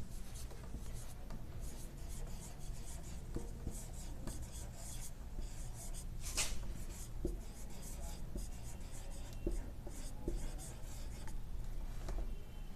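Dry-erase marker scratching and squeaking on a whiteboard as a line of words is written, in short irregular strokes.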